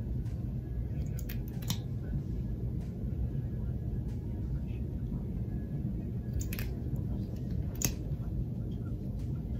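A few sharp little clicks from a liquid concealer's applicator wand and tube being handled, two about a second in and two more around six and a half and eight seconds, over a steady low hum.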